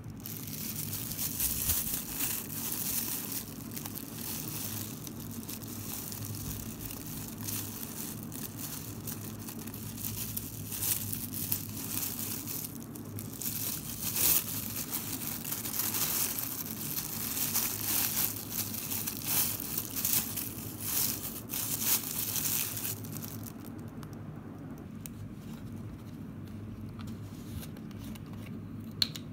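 Thin clear plastic bag crinkling and rustling as it is handled and opened around a bread bun, going quieter after about 23 seconds. A single sharp click comes near the end.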